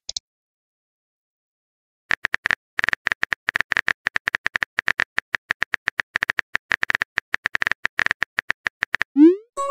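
Rapid keyboard-typing clicks from a texting app, about ten a second, starting about two seconds in and lasting some seven seconds as a message is typed out. Near the end comes a short rising whoosh, the app's message-sent sound.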